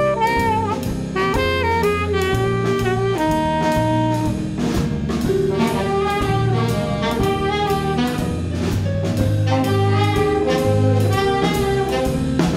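A saxophone section playing a jazz tune in close harmony, with notes held and moving together, backed by electric bass, drum kit and keyboard.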